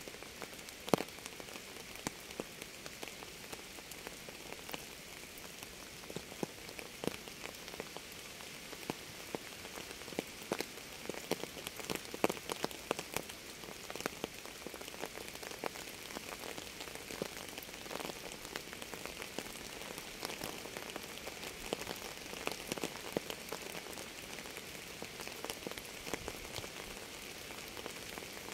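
Steady rain: a constant hiss with many sharp, separate drops tapping on a surface.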